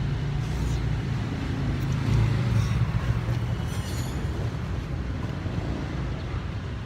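Steady low rumble of street traffic, swelling a little about two seconds in as a vehicle passes close by.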